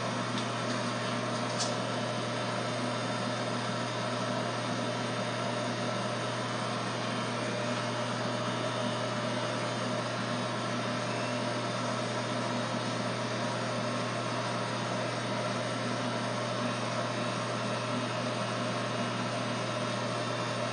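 Electric hair clippers running with a steady, even buzz.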